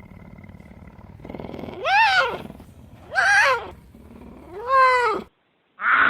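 An animal's voice: three drawn-out calls about a second and a half apart, each rising and then falling in pitch. A short, harsher call starts just before the end.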